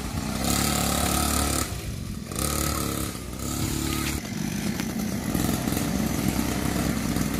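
Small 49cc mini dirt bike engine revved twice, each blip lasting about a second and a half, then dropping back to a lower, uneven idle for the rest.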